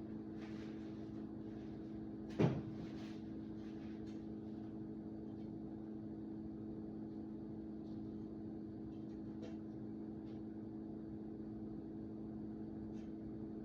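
Faint clicks and one sharp knock about two and a half seconds in, as stuck copper pipe fittings are handled, over a steady low hum.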